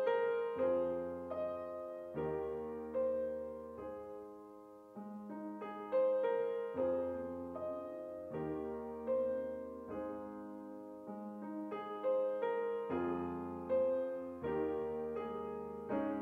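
Solo grand piano playing a slow, gentle piece: chords and melody notes struck every second or so, each left to ring and fade.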